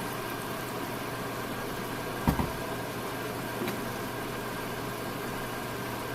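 A steady low mechanical hum runs throughout, with a single knock a little over two seconds in.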